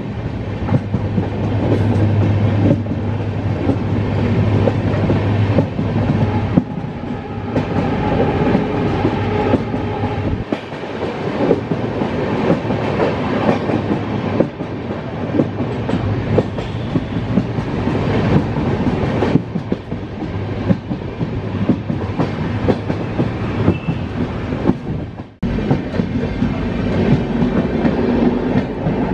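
Indian Railways passenger coach of the Dehradun–Kathgodam Express running at speed, heard from its open doorway: wheels clickety-clacking over the rail joints under a steady running noise. A low hum sits under it for the first few seconds, and the sound briefly drops away shortly before the end.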